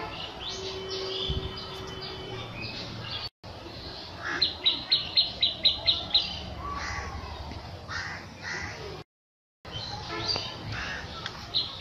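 Birds calling, with many short chirps and a quick run of about nine sharp, high notes between about four and six seconds in. The sound cuts out briefly twice.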